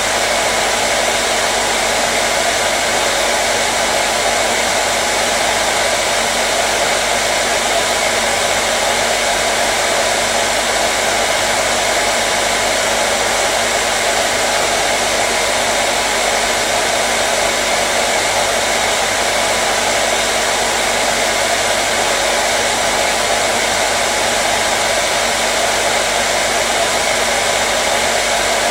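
Hair dryer running continuously at a constant speed: a steady rush of blown air with a faint whine from its motor.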